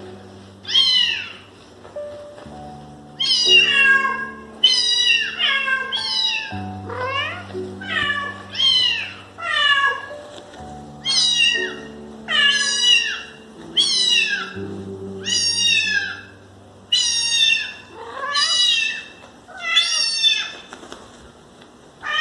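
A cat meowing over and over, about twenty short, high meows that each fall in pitch, with background music underneath.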